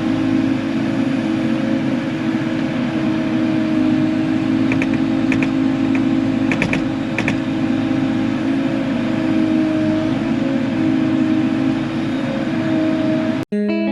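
Diesel engine of heavy digging equipment running steadily under load, with a few short ticks about halfway through. It cuts off suddenly just before the end, giving way to guitar music.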